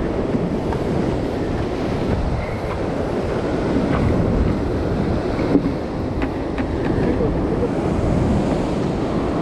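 Ocean surf breaking and washing against a rock ledge, a steady loud rush of water, with wind buffeting the microphone.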